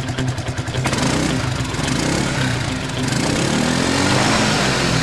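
A small engine idling with a quick, even pulse, then revved up and down from about a second in, its pitch rising and falling.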